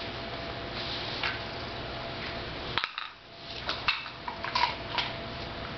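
Metal dog bowl clinking and knocking on a wooden floor, about half a dozen short clinks spread over several seconds, over a steady low background hum.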